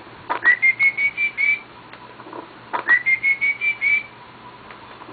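A high whistling call, heard twice: each time a quick rising sweep into a run of about six short, even notes lasting just over a second.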